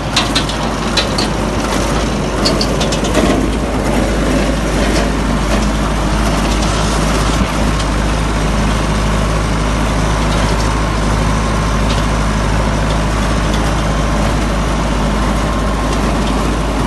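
Tractor engine running steadily while it drives a Yodha super seeder working the field: a steady drone of engine and rotor. There are rattling clicks in the first few seconds.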